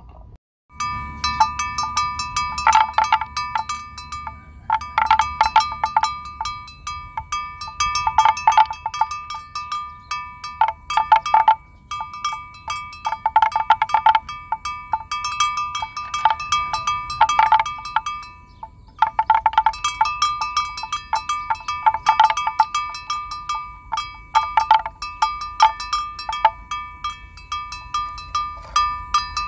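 Bells worn by grazing water buffalo, clanking in irregular clusters every second or two as the animals move their heads. Each clank rings on briefly with a bright metallic tone.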